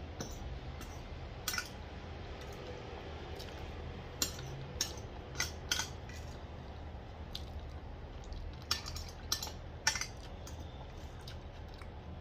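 Metal fork clinking and scraping against a ceramic plate, about ten short, sharp taps at irregular intervals, while picking up the last peas from the plate.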